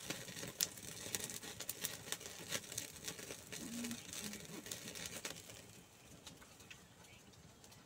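Open wood fire crackling, with irregular sharp pops and snaps that thin out after about five seconds.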